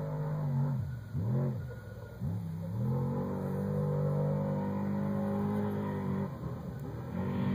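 Off-road race vehicle's engine, heard at a distance as it comes down a desert trail. It revs up and falls back twice in quick succession, holds steady high revs for a few seconds, drops off about six seconds in, and picks up again near the end.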